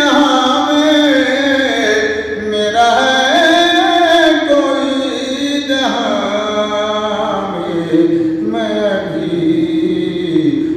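An elderly man singing a naat, a devotional song in praise of the Prophet, solo, holding long notes that glide up and down in pitch, with short breaks between phrases.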